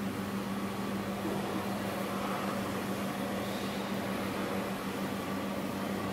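360 kW diesel generator set running inside its sound-attenuating canopy: a steady hum with one strong low tone.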